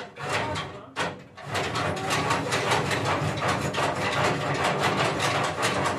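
A rapid, even mechanical clatter, several strokes a second, starting about a second and a half in and running on steadily.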